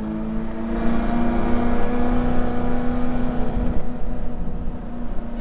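Holden VK Commodore's 308 V8 running at steady revs on a warm-up lap, heard from inside the car, easing off slightly about four seconds in before picking up again.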